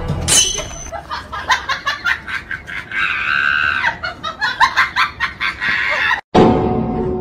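Meme sound effect: a fast run of short pitched calls, with a longer high call in the middle, cut off abruptly about six seconds in. A few held musical tones follow.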